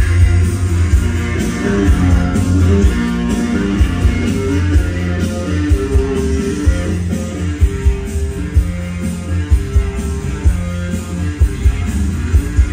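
Loud dance music played through a DJ's party sound system, with heavy bass and a steady beat.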